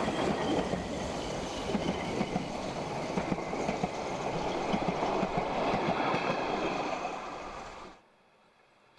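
Narrow-gauge steam train's passenger carriages rolling past close by, their wheels clattering over the rail joints. The sound cuts off abruptly near the end.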